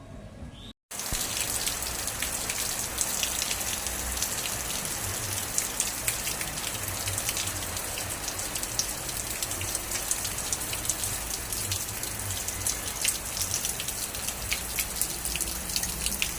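Steady rain falling, a dense hiss with many separate drops ticking close by; it cuts in abruptly after a brief dropout just under a second in.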